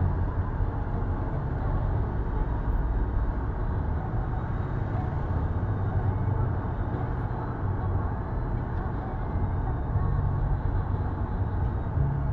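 Car driving in city traffic, heard from inside: a steady low engine and road noise.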